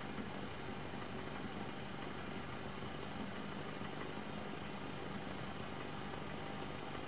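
An engine idling steadily: a low, even rumble with a faint hum that does not change.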